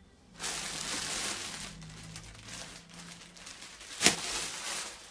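Rustling and crinkling of cloth and packaging being handled, with one sharp click about four seconds in.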